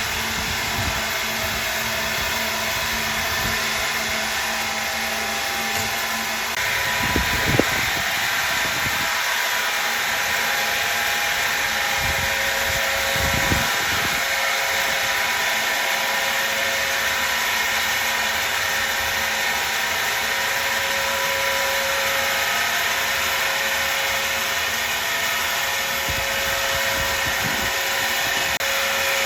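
Woodworking machinery running steadily, a constant mechanical noise with a steady whine. The sound changes about six and a half seconds in, and there are a couple of brief low knocks.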